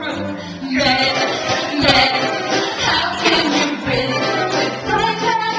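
Singers performing a number from a stage musical, with musical accompaniment.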